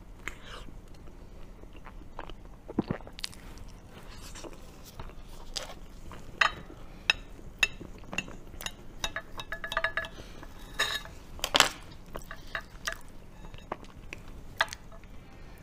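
Close-miked eating and food-handling sounds: chewing of a bite of snow-skin mochi cake, then a knife slicing raw bluefin tuna belly on a plate. Many short sharp clicks and taps throughout, thickest in the middle, the loudest a little past two-thirds of the way in.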